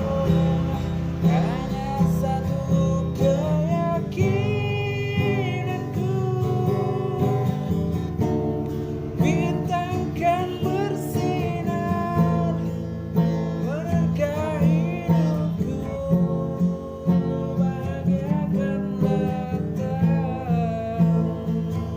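Acoustic guitar strumming a song's instrumental break, with a wavering melody line over it.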